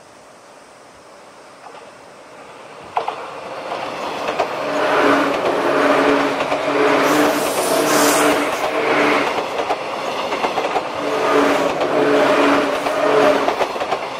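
A JR 185-series electric express train approaching and passing close by at speed, building from about three seconds in. Its wheels beat out a regular clickety-clack over the rail joints, with a steady hum under it, and there is a sharp click as the sound starts to build.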